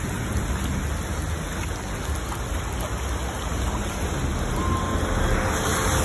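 Steady rain with the low rumble of a car driving along a flooded street.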